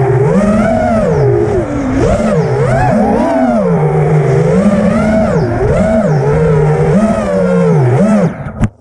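FPV quadcopter's brushless motors whining, the pitch swinging up and down with the throttle. Near the end the motors cut out suddenly, with a brief knock as the quad goes down into the grass.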